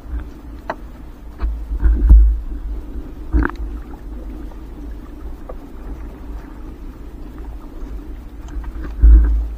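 Fishing net being hauled by hand into a small boat: low rumbling thumps, loudest about 2 s in and again near the end, with a few short knocks and clicks from the net and boat being handled.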